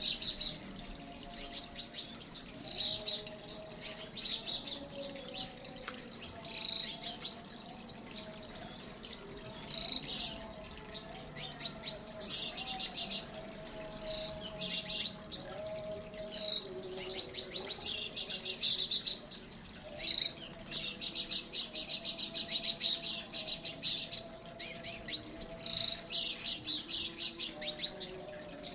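Several small songbirds in an aviary chirping and twittering continuously, with quick overlapping high chirps and short trills.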